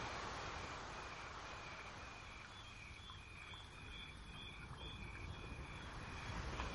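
Steady background hiss with a faint, regular series of short high chirps, about two a second.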